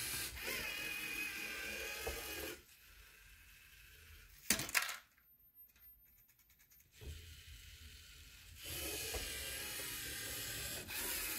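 LEGO Mindstorms EV3 robot's electric motors whirring through their plastic gears, in two long stretches. Between them it goes quieter, with a single sharp click near the middle and faint quick ticking after it.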